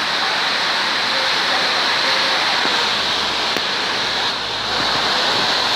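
Steady loud rushing noise, with a brief small dip in level about four and a half seconds in.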